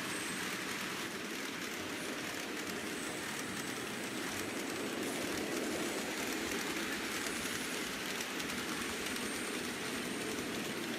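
Several N-scale model trains running at once, their small DCC locomotive motors and metal wheels on the track making a steady whirring rattle, with a faint high squeal now and then.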